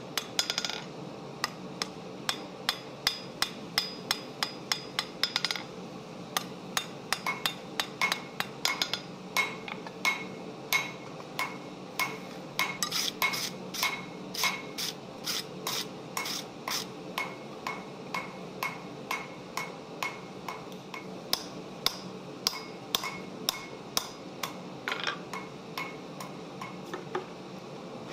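A hand hammer striking a hot steel bar on an anvil, with about two to three blows a second and a short metallic ring after each, as the bar's end is drawn out to a taper. A steady hum runs underneath.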